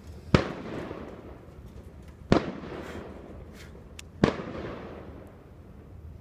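Fireworks bursting: three sharp bangs about two seconds apart, each trailing off in a rolling echo, with another starting near the end.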